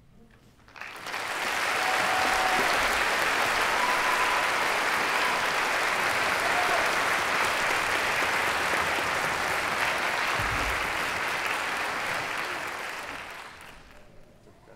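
Concert audience applauding. The clapping swells in about a second after the music ends, holds steady, and dies away near the end.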